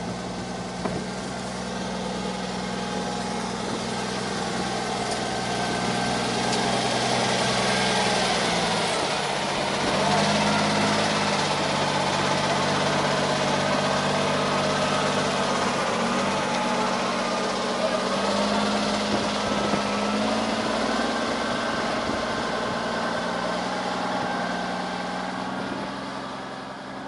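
Diesel engine of a Kenworth cabover truck running at low revs as the heavy-haulage rig reverses slowly past, with a low, steady engine note. The engine pitch steps a little a couple of times. It grows louder as the cab draws level and fades near the end.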